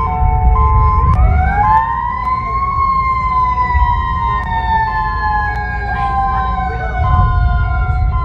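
Emergency alert alarm audio: tones switching back and forth between a higher and a lower pitch, joined about a second in by a siren that wails up and then slowly falls, over a heavy low rumble.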